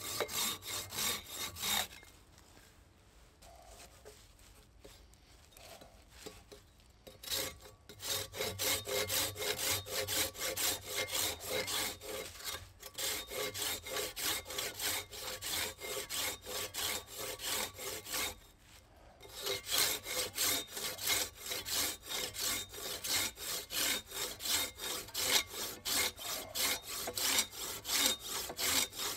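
Silky folding pruning saw cutting through a small wooden branch in quick, regular back-and-forth strokes. The sawing stops for several seconds near the start and pauses briefly about two-thirds of the way through.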